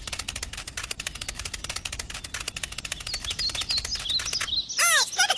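A rapid, steady clicking rattle over a low hum, giving way near the end to swooping bird-like chirps.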